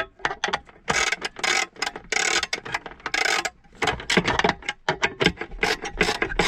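Ratchet wrench driving a self-tapping screw into plastic, the ratchet clicking in repeated strokes as the handle swings back and forth. The strokes become shorter and quicker from about four seconds in.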